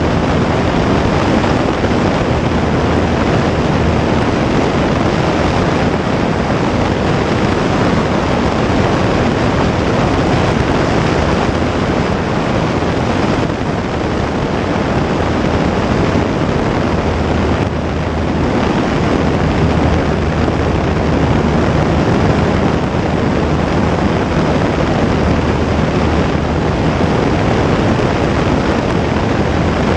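Single-engine light aircraft's propeller engine running steadily at full power through the take-off and climb-out, buried in heavy wind rush on the outside-mounted microphone.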